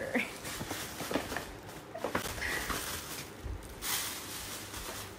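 Tissue paper rustling and crinkling in irregular handfuls as it is pulled out of a gift bag.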